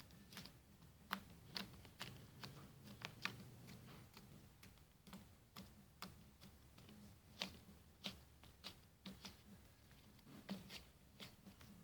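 Slime being worked by hand, giving faint, irregular little clicks and pops, a few each second.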